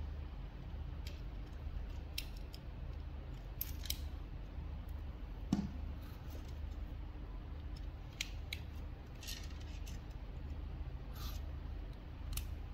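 Small plastic clicks and taps as fingers handle a small black camera module, fitting its flat ribbon cable and a plug into it, with one louder knock about halfway through. A steady low hum lies underneath.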